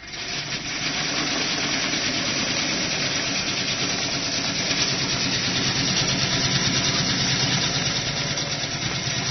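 Commercial Emura vegetable cutting machine running steadily while it shreds carrots into thin strips: an even mechanical whirr with a fast rattle, starting abruptly at the beginning.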